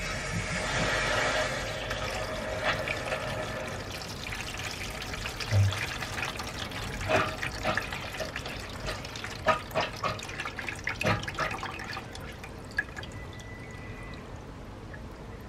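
Black, sludge-laden water gushing out of a radiator as it is flushed, running down a board into a plastic bucket and splashing. The flow is strongest at the start, carries on with scattered splashes, and eases off near the end.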